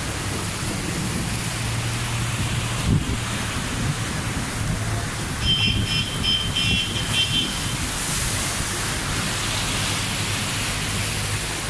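Cars and trucks driving through floodwater, their wheels pushing up waves in a steady rushing wash over rain and running engines. A string of short high beeps sounds about halfway through.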